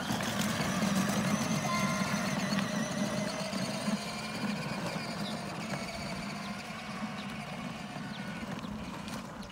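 Kids' electric ride-on toy motorcycle (BMW-styled) driving across asphalt: a steady motor hum with wheel noise, easing off slightly as it moves away.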